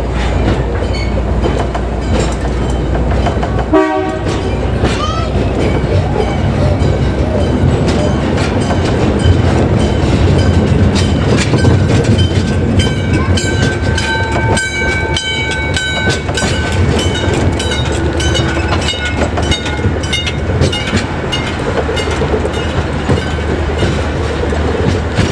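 A 2 ft narrow-gauge train running along the track, its wheels clicking over the rail joints, the clicks coming thicker from about ten seconds in, over a steady low rumble.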